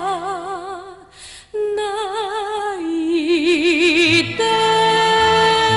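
Female singer in a Japanese kayōkyoku ballad holding the closing notes of the song with a wide vibrato, with a short breath about a second in. From about four and a half seconds in, a steady held final chord sounds over a low bass.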